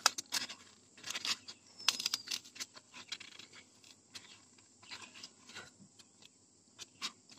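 Polystyrene foam being broken and scraped by hand: irregular crackling and scratching, busiest in the first couple of seconds and sparser after.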